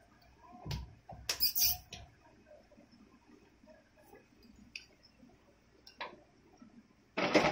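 Scattered clicks and knocks of a plastic ride-on toy car being handled, with a cluster of sharp knocks about a second and a half in and a few faint ticks after. Near the end a child starts laughing loudly.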